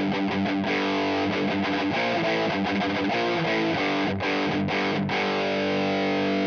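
Distorted electric guitar played through the Audiority L12X solid-state amp plugin, a Marshall JCM-style amp simulation: sustained chords and riffs, with two brief breaks about four and five seconds in.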